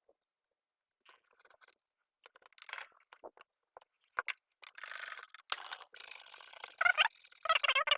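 Small hard parts and tools being handled and scraped: scattered clicks and scratches at first, then a continuous scratchy scraping from a little past halfway, with louder squeaky rubbing near the end.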